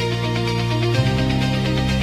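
Background music with sustained notes and a bass line, changing chord about a second in.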